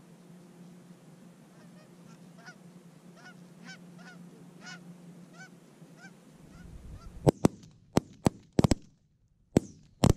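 Geese honking in a run of repeated calls for several seconds, then a rapid volley of about eight or nine shotgun blasts, some in quick pairs, as the geese come in over the decoys.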